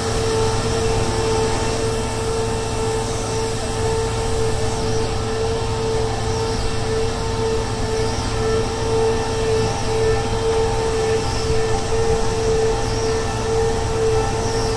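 Soilmec CFA piling rig running steadily as its rotary head drives the continuous flight auger into the ground: a constant engine and hydraulic drone with a steady high whine over it.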